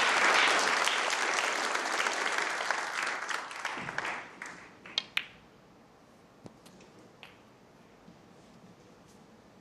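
Snooker crowd applauding, dying away over about four seconds. Then two sharp clicks of snooker balls close together about five seconds in, with a few faint ball clicks after.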